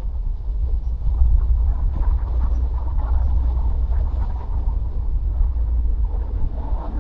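Car driving at road speed: a steady low rumble of engine and tyre road noise.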